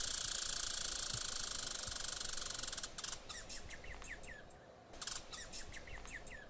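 Squirrel calling: a rapid, high trill that stops about three seconds in, then a string of short, falling chirps and clicks.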